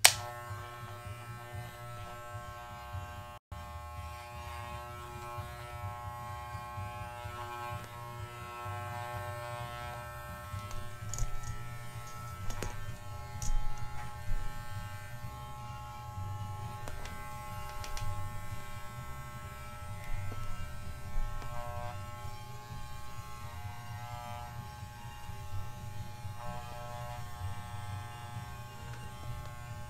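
Corded electric dog clippers running steadily with a buzzing hum while trimming a miniature schnauzer's head around the ears. About halfway through there are a few louder scratchy bursts as the blades work through the coat.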